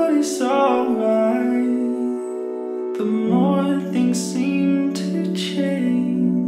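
Background music: a song with a sung melody over held chords and guitar.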